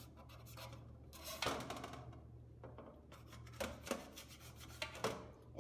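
Knife cutting the thick central ribs out of blanched cabbage leaves: a few short, soft scraping strokes.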